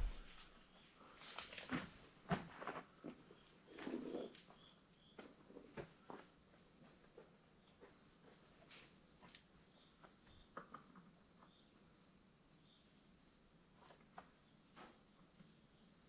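Crickets chirping faintly, a high pulse about three times a second. A few faint knocks and clatters come in the first several seconds.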